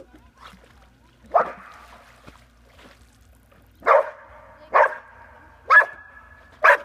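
Dog barking at a duck decoy: one bark, then a run of four barks about a second apart near the end.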